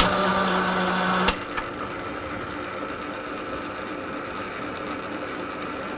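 Metal lathe running on a power-fed threading pass, a ten-thou cut on a 4 TPI multi-start thread, with the carriage driven along by the leadscrew. It opens with a click and a louder stretch of about a second with a steady low hum, then settles into even machine running.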